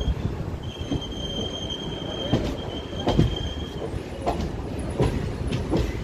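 Passenger train coach wheels rolling slowly over points, heard from the coach's open doorway: a steady high squeal for about three seconds, with half a dozen uneven clacks as the wheels cross rail joints and switches, over a low rumble.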